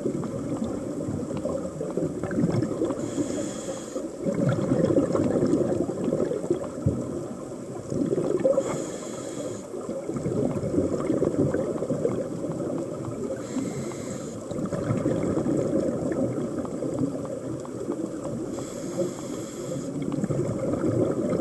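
Scuba diver breathing through a regulator, heard underwater: a short hiss on each inhale, four times about five seconds apart, each followed by a long stretch of bubbling exhaust.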